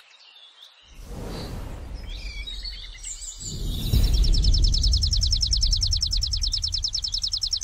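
Logo-animation sound effect: a rushing noise over a deep rumble builds from about a second in. Then a few scattered bird chirps are followed, from about halfway, by a rapid, even bird trill of roughly ten high notes a second.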